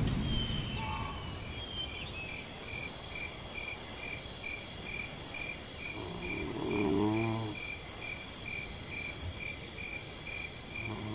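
Crickets chirping in a steady, even pulse, about two chirps a second. About six seconds in, a lower, wavering animal call sounds briefly over them.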